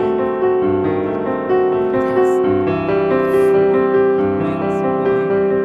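Background instrumental music: a slow keyboard melody of held notes, changing about every half second to a second.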